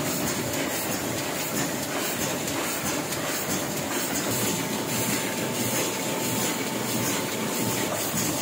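Small sheet-fed offset printing press running at speed, a steady rapid mechanical clatter as sheets are fed through, printed and carried off by the delivery grippers.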